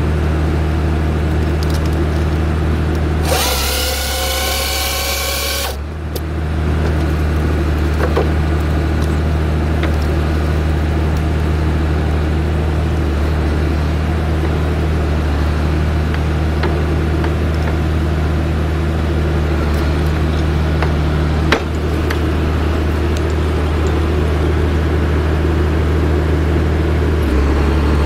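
Skogsjan forestry harvester's diesel engine running steadily under load, with its hydraulics working the crane and harvester head. About three seconds in, a loud hiss with a slightly rising whine lasts for about two and a half seconds, and a few short knocks come later.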